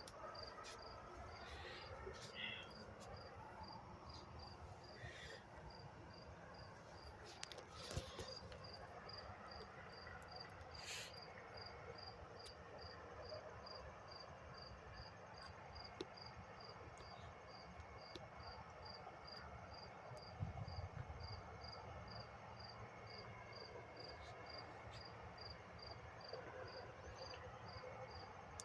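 Faint cricket chirping in an even, steady rhythm of about two chirps a second, with a few soft knocks.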